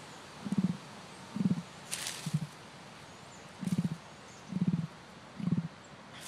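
A large flightless bird giving short, low, pulsing grunts, six in all, roughly a second apart.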